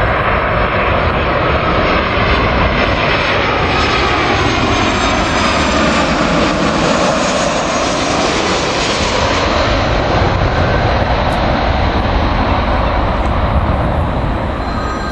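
Boeing 737-600's twin CFM56 turbofan engines on a landing approach, a steady loud jet noise with a high whine that drops in pitch as the aircraft passes close by around the middle.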